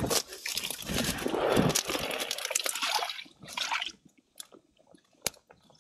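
Grass and weeds rustling and crunching as they are pushed through along a ditch bank, a dense crackle for about three seconds. It then dies down to scattered small clicks, with one sharp tick near the end.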